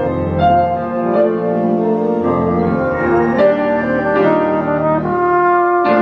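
A French horn playing a slow melody, moving to a new held note about every second.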